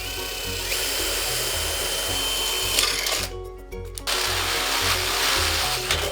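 Power drill running in two long bursts, the first about three seconds and the second about two, separated by a short pause. Background music with a steady beat plays underneath.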